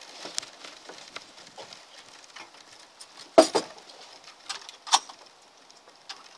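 Sharp metallic clicks and clacks of an SKS carbine being handled on the bench. The loudest clack comes about three and a half seconds in and another about five seconds in.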